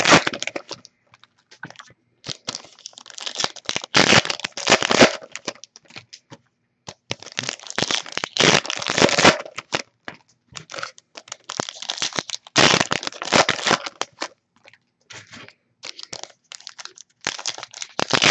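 Foil-wrapped Topps Finest football card packs being handled, crinkled and torn open by hand, in irregular bursts of crackling with short pauses between them.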